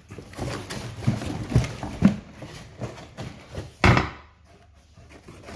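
Parts and packaging of a newly unboxed pressure-washer surface cleaner being handled: irregular light knocks and rustling, with one loud sharp knock about four seconds in, then quiet.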